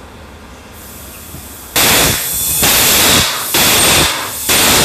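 Bead buster (bead seater air tank) firing repeated blasts of compressed air into a tire stretched on a wide rim. After a short lull there are about four loud rushes of air, each starting abruptly and lasting about half a second, roughly a second apart. The air escapes past the bead and the bead fails to seat.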